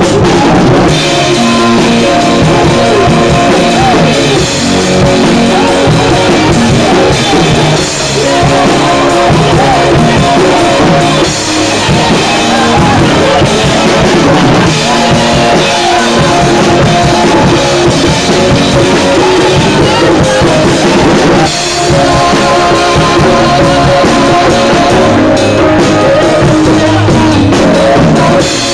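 Live band music, loud, with a drum kit and cymbals driving a steady beat.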